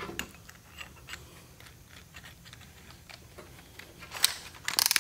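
Scattered light clicks and taps of metal tools being handled, with a quicker run of louder clicks near the end as the cordless drill is taken up.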